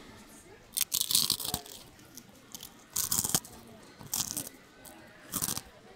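Crunching of baitangcong, a hollow, brittle Taiwanese pulled sugar candy, being bitten and chewed: four short crisp crunches, about a second or more apart.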